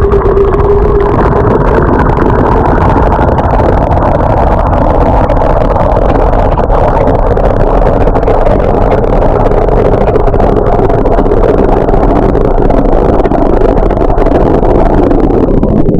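Water pouring from a pipe into a metal vessel, heard from a camera inside it as the water rises over it: a loud, steady churning rush.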